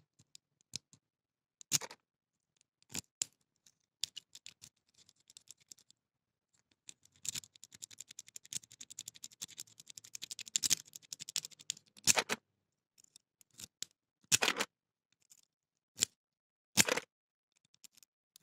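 Metal lock-picking rake scraping and clicking over the wafers inside an AV Bruxelles wafer padlock's keyway, under tension from a tension wrench. Scattered single clicks, then several seconds of rapid scratchy raking about seven seconds in, then a few louder single clicks. The lock does not open.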